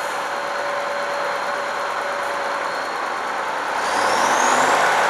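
Kharkiv T-150K tractor's diesel engine running steadily, then revving up hard about four seconds in, with a rising whine as it puffs black smoke under load.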